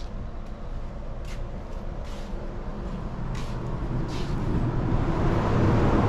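Steady low rumbling outdoor background noise with a few faint light clicks, swelling louder near the end.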